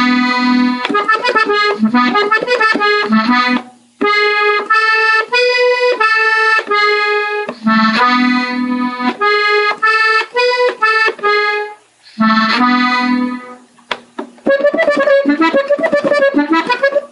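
Gabbanelli diatonic button accordion playing a melody slowly, phrase by phrase, with short breaks about four and about twelve seconds in. Near the end comes a quick run of rapidly repeated notes.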